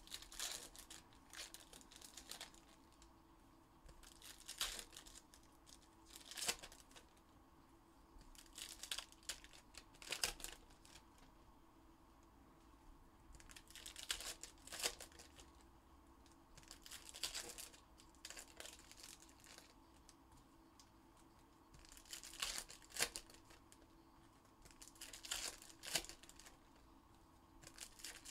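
Foil wrappers of football card packs being torn open and crinkled by hand, in short bursts every second or two.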